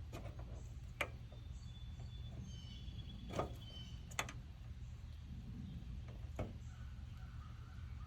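A few faint, separate clicks as insulated pliers pull push-on wire connectors off the terminals of an outdoor air conditioner's dual run capacitor, over a low steady background rumble.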